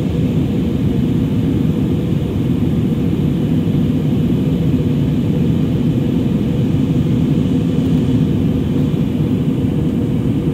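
Steady, deep rumble of an airliner's cabin noise in flight, from the jet engines and the air rushing past the fuselage, heard from inside the cabin.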